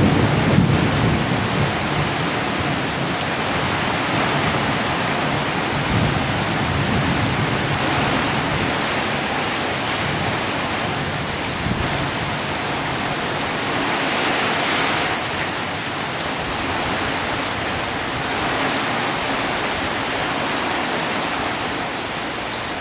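Steady rain falling, an even hiss without single drops standing out, with a low rumble that fades in the first couple of seconds.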